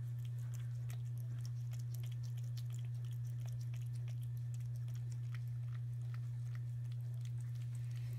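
A domestic cat eating chicken-and-gravy wet food, with soft, irregular wet chewing clicks several times a second, over a steady low hum.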